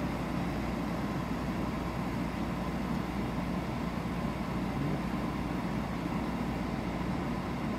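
10,000 BTU portable air conditioner running steadily with its compressor on, an even mechanical hum with fan rush.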